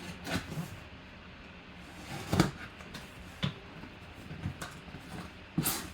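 Scattered knocks and scrapes of a box and its packaging being handled and opened, about six in all, the loudest about two and a half seconds in.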